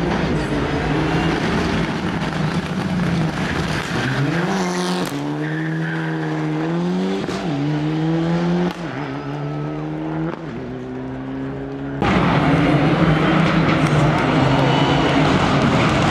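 Rally car engines revving hard, the pitch climbing and dropping again and again through gear changes. About twelve seconds in, the sound switches abruptly to a louder, rougher car.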